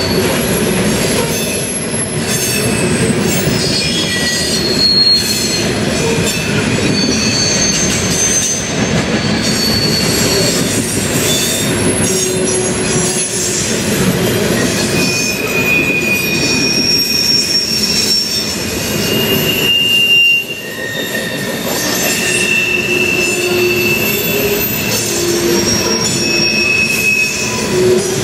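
Loaded coal hopper cars of a freight train rolling past: a steady rumble of wheels on rail, with short high squeals from the wheels coming and going every second or two at changing pitches.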